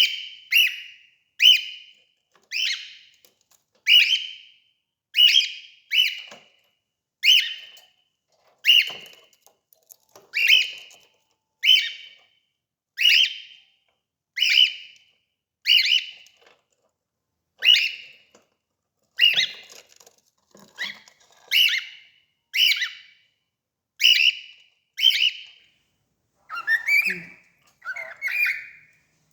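A cockatiel calling over and over: one short, shrill call roughly every second, with a couple of lower, rougher calls near the end.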